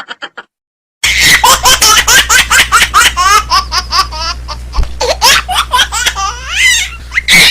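A laughter sound effect: a long, hearty bout of laughing in rapid 'ha-ha' pulses with rising and falling pitch, starting about a second in, over a steady low hum.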